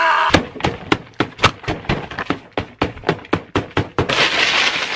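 A yell cuts off a moment in, then rapid repeated banging blows, about five a second, as food is smashed on a table, with a burst of crashing noise near the end.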